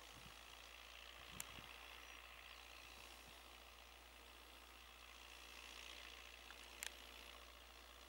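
Faint, steady drone of a distant John Deere 6110M tractor pulling a mouldboard plough, barely above near silence. Two brief clicks, one about a second and a half in and one near the end.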